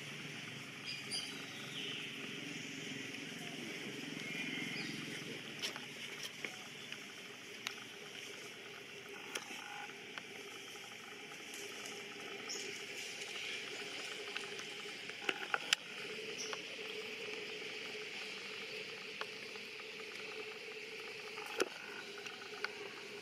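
Soft outdoor ambience with a faint steady hum. Over it come scattered small clicks and crackles as long-tailed macaques tear and eat a ripe mango, with a few sharper clicks a little past the middle and near the end.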